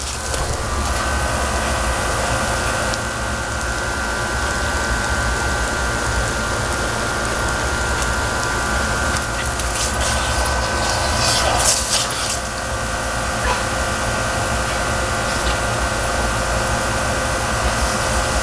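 Steady hiss of lawn sprinklers spraying, with a constant mechanical hum underneath; a short, louder spray-like hiss comes about ten to twelve seconds in.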